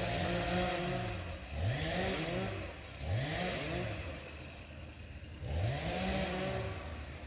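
A motor vehicle engine revving up and down repeatedly, its pitch rising and falling about four times.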